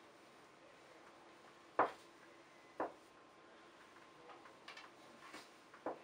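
Small sharp clicks and taps from hands working a new rubber seal into the brass cartridge of a Gummers 1500 thermostatic shower valve: three distinct clicks, the loudest about two seconds in, with a few fainter ticks near the end.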